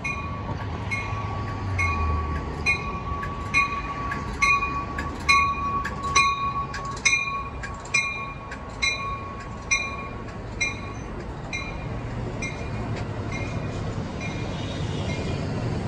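Amtrak Keystone Service train departing, its coaches rolling past with a low rumble, while a bell dings about twice a second and stops about 11 s in. A steady high whine runs under the dings and fades out at about the same point.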